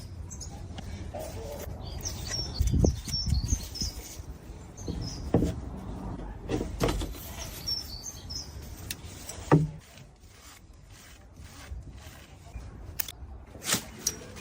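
Birds chirping, with scattered knocks and thuds of work; the loudest knock comes a little past halfway.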